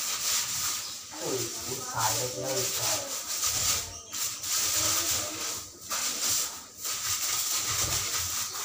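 Broom sweeping a floor: repeated hissing brush strokes with short breaks between them.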